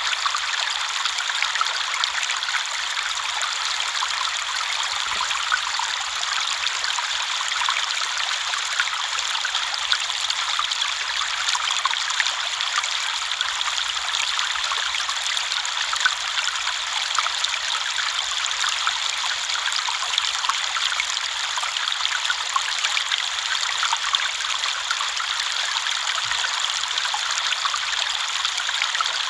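River water flowing, a steady rushing hiss flecked with small splashes and trickles.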